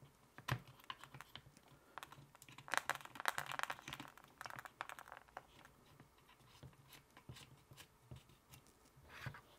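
Handling noise as a SAIREN T-Mic's shock mount is slid onto a VIJIM V-Light's cold shoe and its locking thumbwheel is turned. Scattered small clicks and scrapes, busiest about three to four seconds in, with another click near the end.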